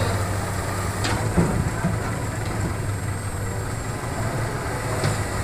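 Hitachi hydraulic excavator's diesel engine running steadily as the machine digs and lifts a bucket of soil, with a sharp knock about a second in.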